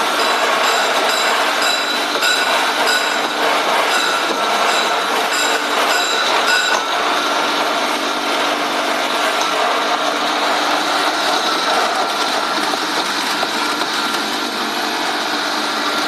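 Stainless steel colloid mill running steadily, its rotor and stator grinding a thick paste: a constant rushing noise with a steady whine. A rapid high-pitched clicking runs over it and stops about seven seconds in.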